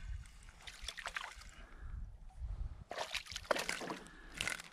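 Hooked smallmouth bass splashing and thrashing at the surface beside a canoe as it is reeled in, in three bouts of splashing: about a second in, around three seconds in, and a short one near the end as it jumps clear of the water.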